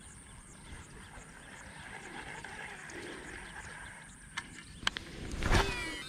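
A cast with a baitcasting rod and reel: a couple of sharp clicks, then a loud swish of the rod about five and a half seconds in, followed by the reel's spool whirring as the line pays out, its pitch gliding.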